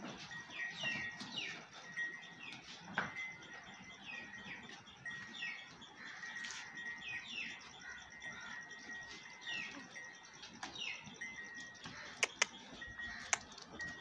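Small birds chirping over and over, short falling chirps every second or so, with a thin high steady tone that comes and goes. Near the end a small bell on a cow's neck cord clinks sharply three times.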